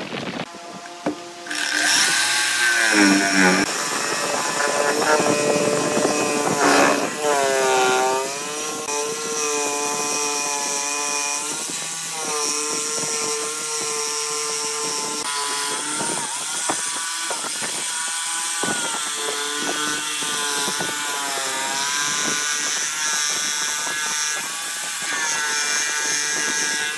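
Corded electric jigsaw cutting a thick wooden plank along curved lines. The motor's whine starts about a second and a half in and rises and falls in pitch as the blade bites and the load changes, over the rasp of the reciprocating blade in the wood.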